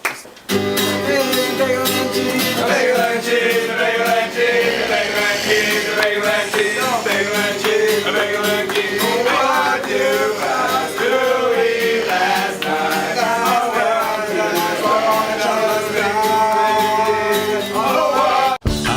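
Music: a country or bluegrass-style tune with guitar and a wavering melody line. It breaks off suddenly just before the end, where a different piece starts.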